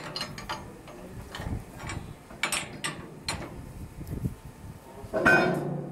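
Steel ring spanner snug-tightening a high-strength friction-grip bolt nut: a string of short metallic clicks and scrapes as the spanner is worked, with a louder ringing clank about five seconds in.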